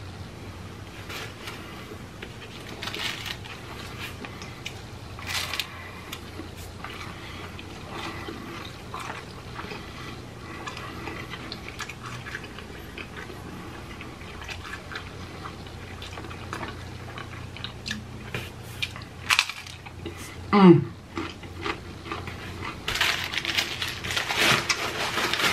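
Close-up eating: scattered crunches of hard, Doritos-coated taco shells being bitten and chewed, with wetter chewing of soft tortilla tacos and burritos. About twenty seconds in, a short hum falls in pitch. Near the end, paper food wrappers crinkle.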